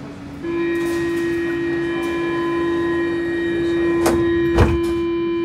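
Stockholm metro train giving off a steady high-pitched squeal that starts suddenly and cuts off about five seconds later, with two sharp clicks near the end.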